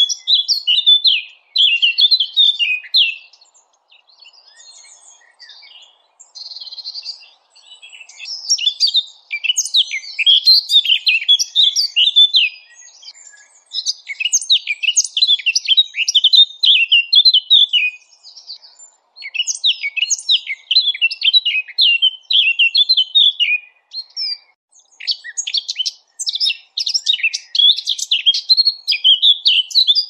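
Small songbirds singing a rapid, high-pitched twittering song in phrases of two to four seconds separated by short pauses: a recorded small-bird song of the kind played as 'masteran' to teach cage songbirds.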